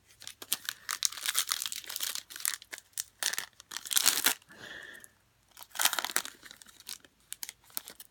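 A trading-card pack wrapper being torn open and crinkled in the hands, in crackly bursts with a short pause about five seconds in.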